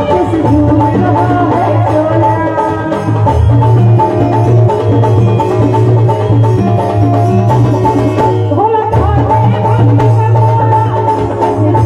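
Loud live folk-song accompaniment through a PA system: a keyboard melody over a steady drum beat, an instrumental break between the sung lines.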